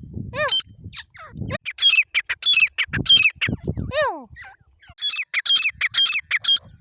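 Francolin (teetar) calling: loud, shrill notes in quick series, mixed with arched notes that rise and fall in pitch, broken by short pauses.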